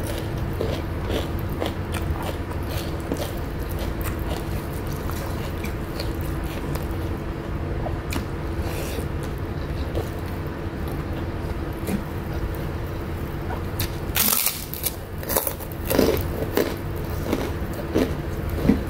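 Close-miked eating sounds: chewing with small wet mouth clicks and smacks while rice and side dishes are eaten by hand, over a steady low hum. A louder crackle comes about fourteen seconds in, with more crisp clicks after it as a white fried cracker is picked up.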